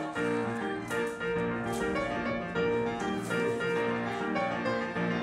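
Background piano music, a melody of held notes changing about every half second.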